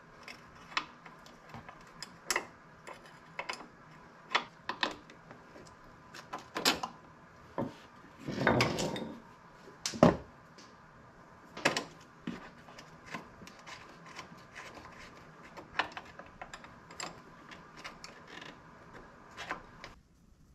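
Hand tools and metal parts working on a car's front brake line fitting and hose bracket: scattered light clicks and clinks, a longer scrape about eight and a half seconds in and a sharp knock at about ten seconds.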